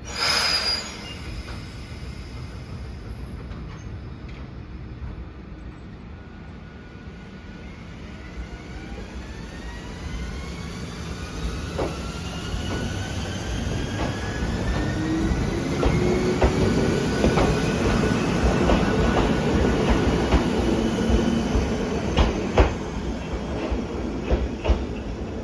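Ichibata Electric Railway 5000 series electric train pulling away from a station and accelerating. A short loud burst comes right at the start, then the motors and gears give a steadily rising whine while the run grows louder. Later the wheels click over the rail joints.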